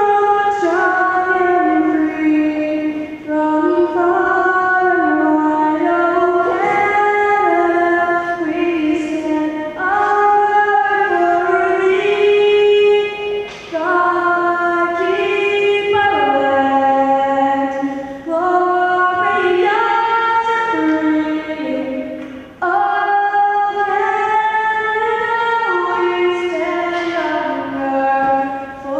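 A woman singing a national anthem solo in slow, held notes, with short breaks between phrases.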